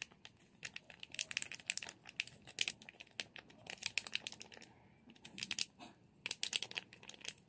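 Paper-and-foil sachet of barley grass powder crinkling as it is held open and shaken over a glass to pour the powder out, in bursts of rapid small crackles.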